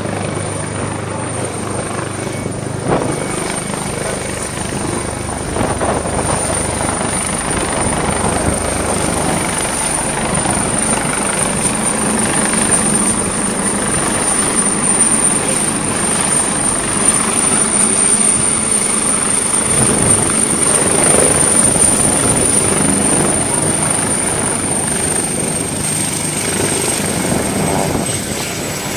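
MH-139A Grey Wolf twin-turbine helicopter hovering low and touching down, its main rotor running steadily with a high turbine whine. The whine drops slightly in pitch near the end as the aircraft sits on the ground with its rotors still turning.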